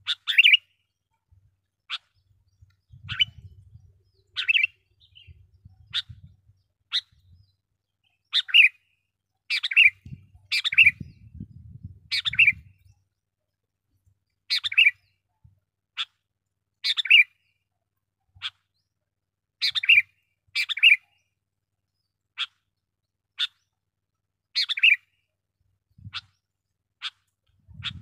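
Sooty-headed bulbul calling vigorously: a string of short, sharp chirps about once a second, with louder, fuller calls mixed in.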